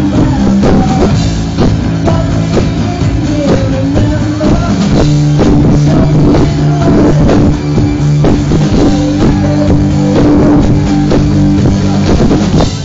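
Live rock band playing loudly, with drum kit, electric bass and electric guitar; the song stops suddenly at the very end.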